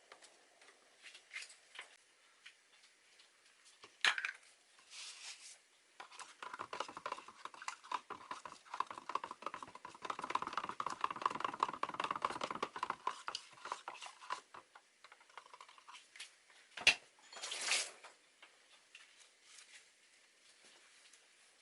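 Kitchen utensils working against dishes and a pan: scattered clinks and knocks, a dense crackly stretch of clatter in the middle, and a sharp knock near the end.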